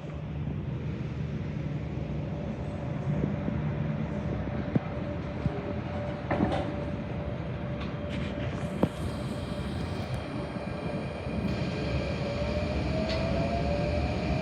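MTR K-Train electric multiple unit running: a steady rumble of wheels on the track, broken by a few sharp clicks. From about eleven seconds in, a whine from the traction motors rises steadily in pitch as the train gathers speed.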